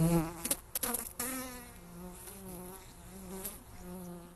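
Honeybees buzzing as they fly close past the microphone, the buzz wavering up and down in pitch, loudest at the start and fainter after. A few sharp clicks in the first second.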